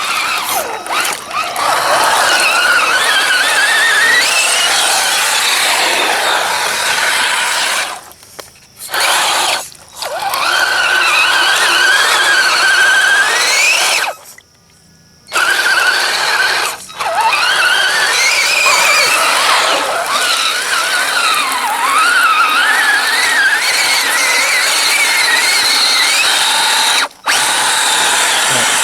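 Axial SCX10 RC truck's electric drive motor and gearbox whining, the pitch rising and falling with the throttle, with a few short pauses where it cuts off.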